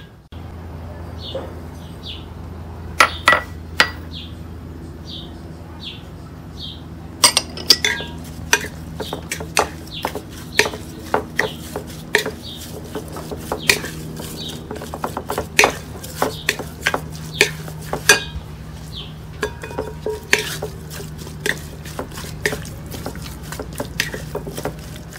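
Raw chicken wings being stirred and mixed in a glass mixing bowl, first with a wooden spoon, then by hand, with irregular clinks and knocks against the glass that come thick and fast from about seven seconds in. A steady low hum runs underneath.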